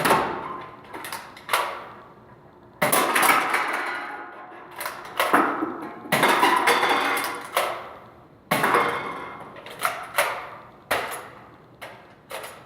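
Nerf blaster shots with sharp clacks and clattering of empty energy-drink cans being hit and knocked down. There are about a dozen sharp knocks, three of which, about 3, 6 and 8.5 seconds in, are followed by a longer rattling tumble.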